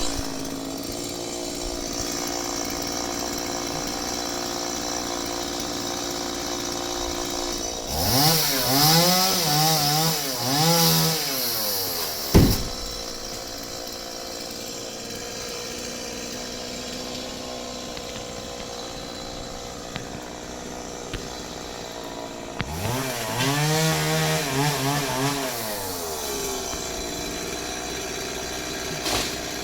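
Champion chainsaw idling steadily, revved up and down in two bursts of a few seconds each, with a single sharp crack just after the first burst.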